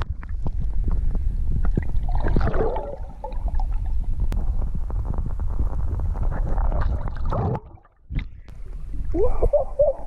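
Muffled water sloshing and gurgling heard through an action camera's housing held underwater, with many small knocks. It drops out briefly near the end as the camera comes out of the water, then a loud yell.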